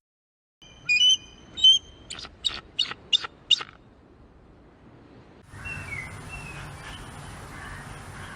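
A bird calling: two clear pitched notes, then a quick series of five short harsh notes. A few seconds later an outdoor background with faint chirping takes over.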